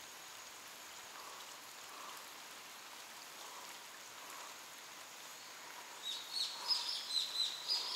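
Faint outdoor background hiss, then a small bird singing from about six seconds in: a quick run of high chirping notes, some sweeping upward.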